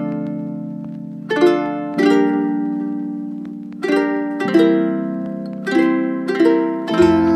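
Background music: plucked notes that ring out and fade, struck every half second to second or so over a held low chord.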